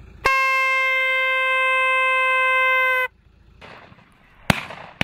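A hunting horn is blown in one long, steady note of about three seconds that sags slightly in pitch as it ends, signalling the start of a shoot. About a second later two shotgun shots ring out half a second apart near the end.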